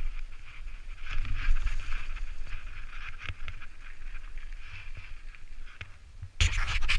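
Propain Tyee enduro mountain bike rolling over leaf-covered dirt and out onto a gravel car park, heard from a helmet camera: tyre noise and wind on the microphone, with light knocks and rattles from the bike. A louder rush comes in near the end.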